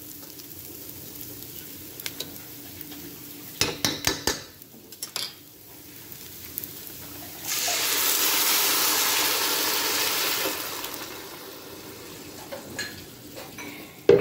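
Rice toasted with dried fruit and nuts sizzling quietly in a hot pan, with a metal spoon clinking against the pan a few times around four seconds in. Then blended water with onion and garlic is poured in and hisses loudly for about three seconds before settling back to a quieter sizzle.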